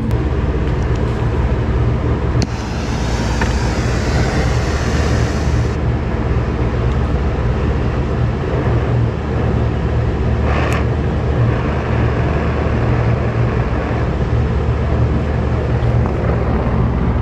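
A steady low machine drone, like a nearby running motor, continues throughout. About two and a half seconds in, a gas brazing torch hisses for some three seconds and then cuts off sharply, and a short burst of noise comes around the middle.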